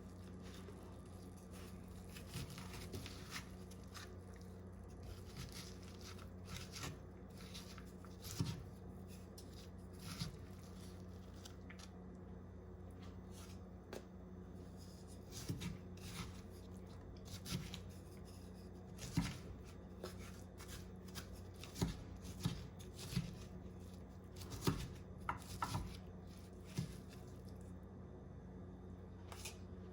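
Soft, scattered scraping and light clicks of kitchen utensils working strands of cooked spaghetti squash out of the shell into a bowl, over a steady low hum.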